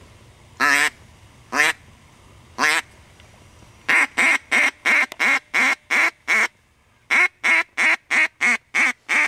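Mallard hen duck call blown by a hunter: three drawn-out quacks, then two fast runs of short, loud quacks with a brief pause between them.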